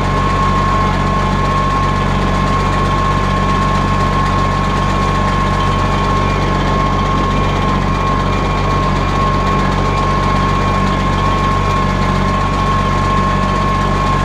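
Compact Case hydrostatic tractor's engine running steadily while it drives a front-mounted Rinieri hydraulic sickle bar trimmer hedging grapevines, with a steady high-pitched whine over the engine.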